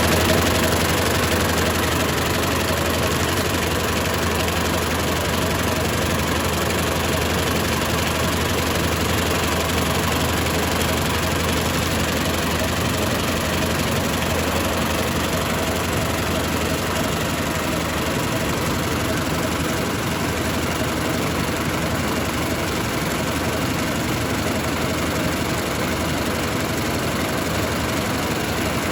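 V-bottom paper bag making machine running at production speed, about 700 bags a minute: a steady mechanical running noise over a low, even hum.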